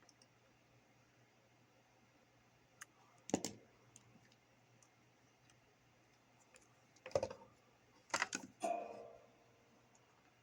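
Small tools and parts being handled on a workbench: a few scattered clicks and clatters, the last one with a brief metallic ring, over a faint steady hum.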